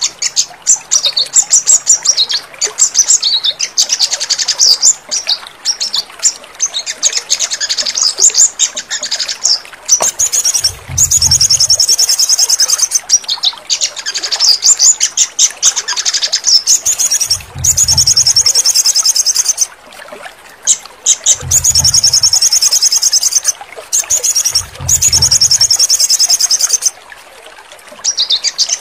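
Sunbird (sogon) singing: fast, high-pitched chirps and long rapid trills in phrases of a few seconds each. Four short low rumbles lie underneath in the second half.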